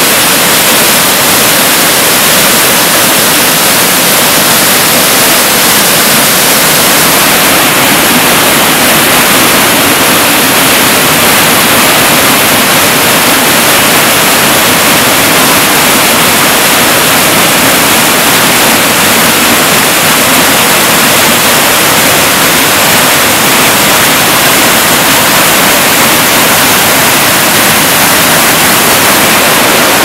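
Spring-fed mountain river rushing down mossy rock cascades and rapids: a loud, steady rush of white water with no break.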